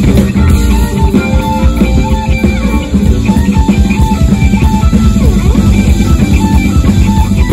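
Jazz-fusion band playing live and loud: electric guitar over electric bass, keyboards and a busy drum-kit beat, recorded on a phone.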